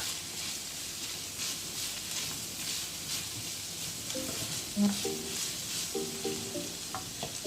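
Minced beef and onions sizzling in a hot frying pan as they are stirred. Faint music joins in the background about four seconds in.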